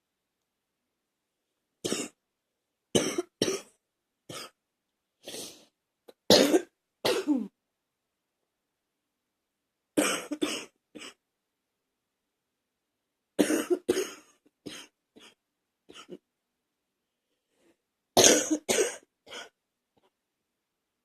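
Repeated fits of coughing: several sharp coughs in quick succession, coming in four bouts separated by a few seconds of silence.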